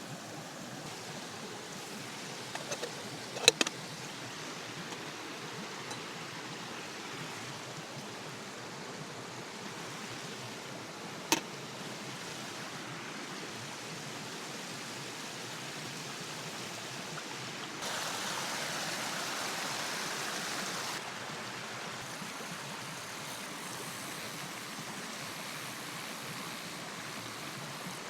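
Steady rush of rain and flowing river water. A few sharp clicks come about three seconds in, one more near eleven seconds, and a louder hiss rises suddenly for about three seconds past the middle before cutting off.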